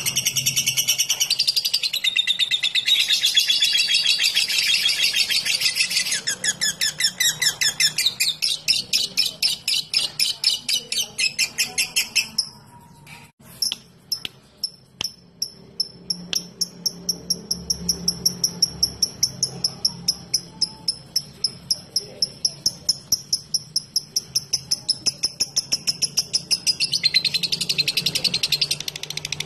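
Lovebird chattering in a long 'ngekek' string of rapid, sharp, evenly repeated high chirps, like typing. The string breaks off briefly about halfway, then resumes as a thinner, higher run of chirps and thickens again near the end.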